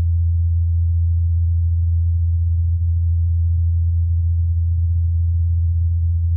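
Rotor blades of NASA's Ingenuity Mars helicopter in flight, recorded on Mars by the Perseverance rover's microphone: a steady, low, unwavering hum, isolated and boosted in volume.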